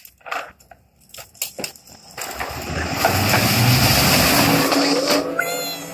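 Air dancer blower being switched on. A few clicks and knocks come first. About two seconds in, the fan motor spins up with a loud rush of air, then settles into a steady hum as the tube man inflates.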